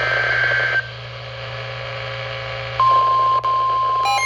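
NOAA Weather Radio alert signalling: a short buzzy burst of SAME digital header data, then about two seconds of static hiss, then the steady 1050 Hz warning alarm tone, which starts about three seconds in and announces a new warning. A low hum runs underneath, and other beeping tones join just at the end.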